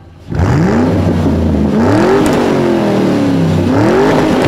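Car engine revving: about three revs, its pitch rising and falling each time.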